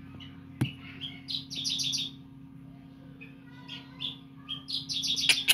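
Three-day-old Javan bush lark (branjangan) nestlings begging for food: rapid high cheeping in bursts, the longest near the end. There is a single sharp click about half a second in.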